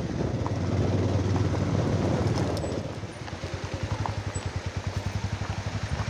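Motorcycle engine running steadily. About halfway through it drops to a quieter, even putting beat, as the engine comes down to low revs.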